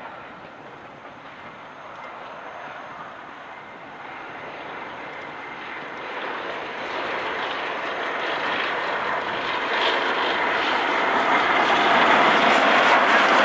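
LNER A4 Pacific steam locomotive and its train approaching at speed, the exhaust and running noise growing steadily louder until it is close by.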